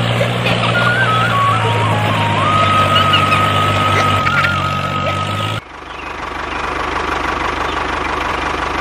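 Tractor engine running steadily, with a high tone stepping up and down in pitch over it. About five and a half seconds in it cuts off abruptly, and an engine idling with even, rapid firing pulses follows.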